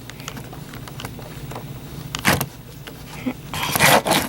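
Small plastic and metal RC truck parts being handled up close: light clicks, one sharp click a little past two seconds in, and a longer scraping, rubbing noise near the end.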